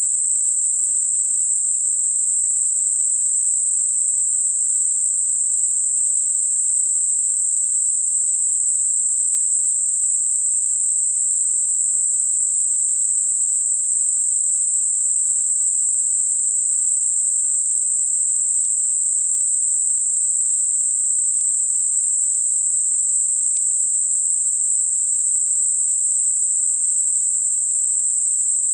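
Synthesized narrow-band noise centred at 8 kHz and rolling off smoothly either side, heard as a steady, even high-pitched hiss with no low end. It is a tinnitus masker aimed at high-frequency ringing in the ears.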